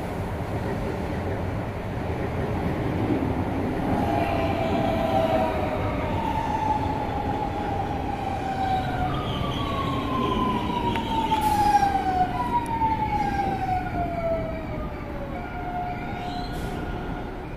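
Electric commuter train running along the track: a steady rumble with a whining motor tone that falls in pitch in several successive sweeps, from about 4 s to about 15 s.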